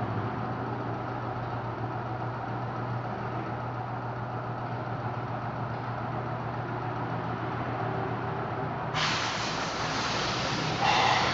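Steady low workshop hum, changing abruptly about nine seconds in to a brighter, hissier background with a short louder knock near the end.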